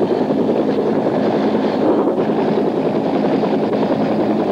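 Bell UH-1 Huey helicopter running: a steady din of rotor and turbine noise with a fast, even flutter.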